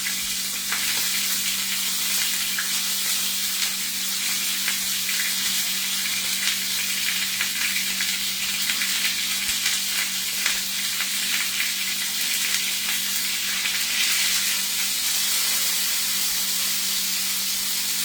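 Chuck roast searing in hot olive oil in a pan, sizzling steadily with fine spitting crackles of spattering oil.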